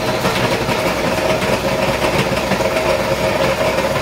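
Small countertop blender running steadily at full speed, blending ice cream, cream soda and chunks of ice.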